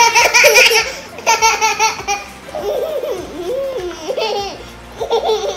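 Young children laughing in several bursts, loudest at the start, with a toddler's giggling among them.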